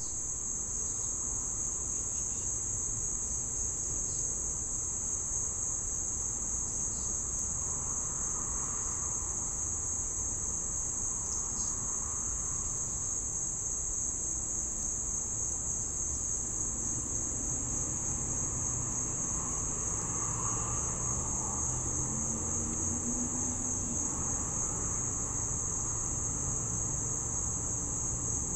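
Insects chirring in one steady, unbroken high-pitched drone, with a faint low rumble beneath.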